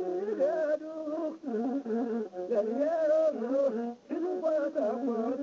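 Ethiopian azmari music: a single ornamented melody line that slides and wavers in pitch, with a short break about four seconds in.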